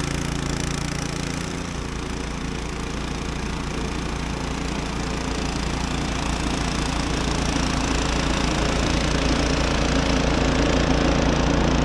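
Snow blower engine running steadily under load while clearing the driveway, growing a little louder over the last few seconds.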